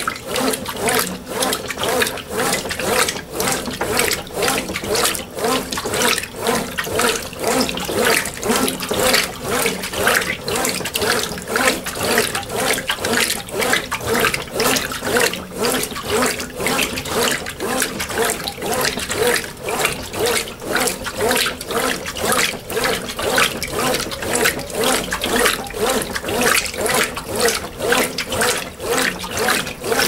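Brastemp BWP11 top-loading washing machine agitating a load of clothes in water during a rinse: rhythmic swishing and sloshing, about two strokes a second, stopping near the end.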